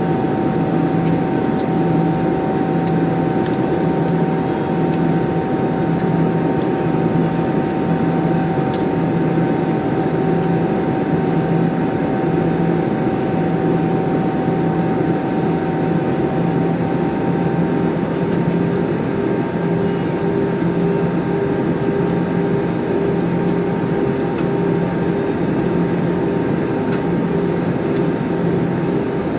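Airbus A320 cabin noise in flight: a steady drone of turbofan engines and airflow, with a few steady humming tones, the lower ones slowly pulsing in and out.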